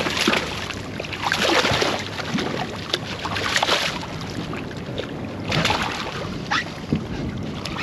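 Splashing of a hooked smoothhound thrashing at the surface beside the boat, in several rushing bursts a second or two apart.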